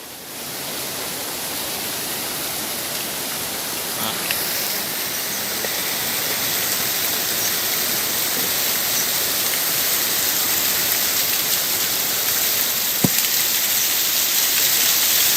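Small stream babbling: a steady rush of running water that grows gradually louder.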